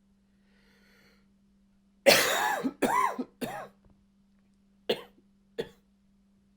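A man's dry cough with a little bark: a run of three quick coughs about two seconds in, followed by two short single coughs.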